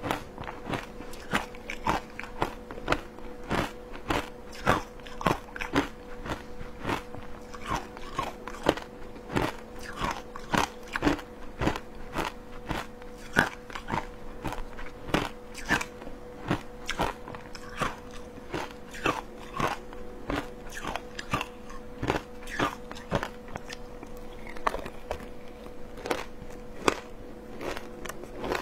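Close-miked crunching and chewing of matcha shaved ice, a quick run of sharp icy crunches about two to three a second, over a steady faint hum.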